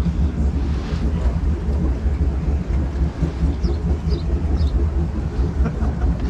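Jet boat engine idling with a steady low rumble, with a few faint high chirps over it.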